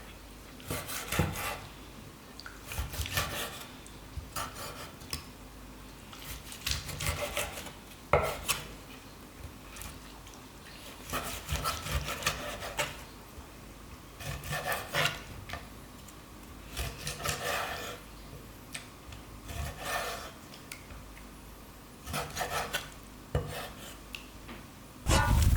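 Repeated short rubbing and scraping strokes of hands-on food preparation, in bursts every second or two.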